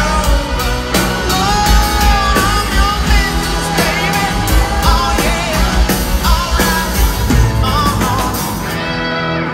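Rock band playing live: a male lead vocal over electric guitars, drums and keyboard. The cymbals and the top end drop away near the end as the song closes.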